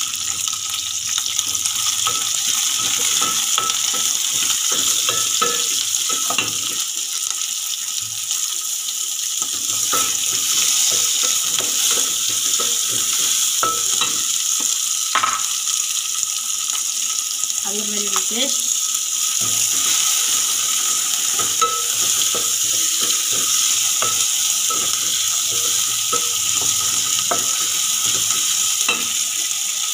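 Sliced onions and green chillies sizzling as they fry in an aluminium pot, with a wooden spatula stirring and knocking against the pot in frequent short clicks.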